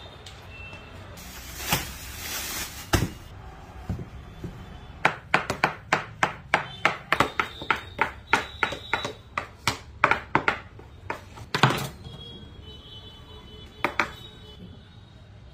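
Kitchen knife chopping blocks of paneer on a table: a quick run of sharp chops, about three a second, lasting several seconds, then a single chop near the end.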